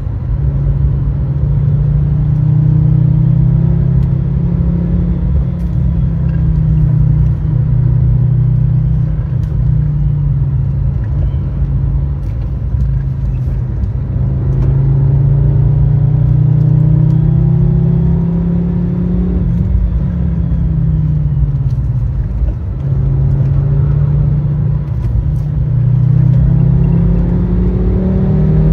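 Fiat Stilo Abarth 2.4 20V five-cylinder engine under hard acceleration, its revs climbing for several seconds and dropping back at each gear change, again and again, over steady road noise.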